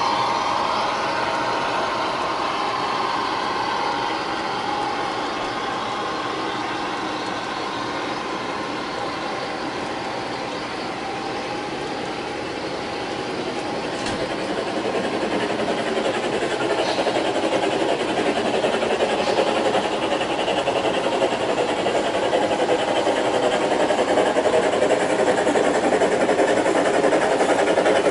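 Large-scale model freight train rolling past on the track: a steady clatter of many wheels on the rails. It dips a little near the middle, then grows louder toward the end.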